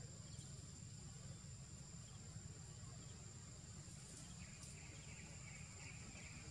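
Faint outdoor ambience: a steady high-pitched whine over a low rumble, with a few faint chirps in the second half.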